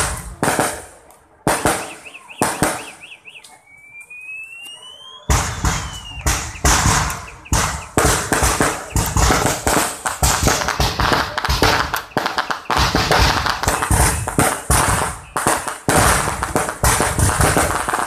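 Aerial fireworks display: a rapid barrage of bangs thins out about a second in, leaving a wavering whistle and a few whistles rising in pitch. At about five seconds a dense, near-continuous barrage of rapid bangs and crackling resumes.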